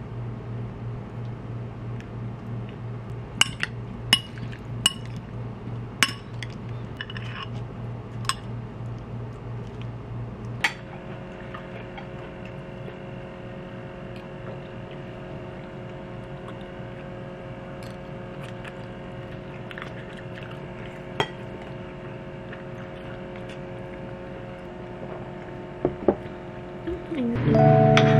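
Sharp clinks of utensils against glass bowls and dishes, a cluster in the first eight seconds and a few more later, over a low steady hum. Music with chiming tones starts loudly near the end.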